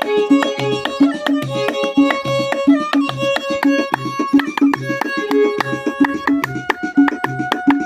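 Background music: a steady hand-drum beat under a melody of held, string-like notes, which moves up to a higher held note a little past six seconds in.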